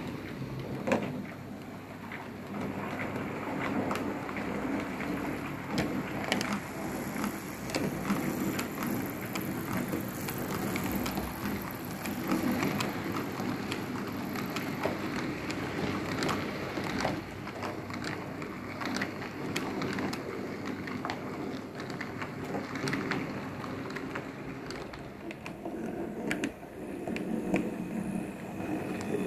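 HO scale model trains running on PIKO track: a steady rattle of metal wheels over the rails, full of small quick clicks as the wagons pass over the track joints.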